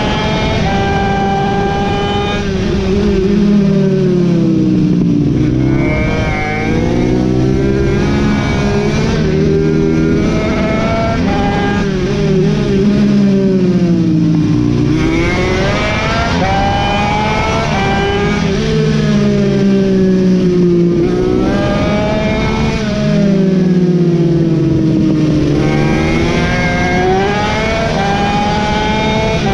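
Mini racing motorcycle's engine heard onboard at race pace, with wind rush: the engine note climbs hard on the straights and drops away under braking into the corners, over and over through the lap.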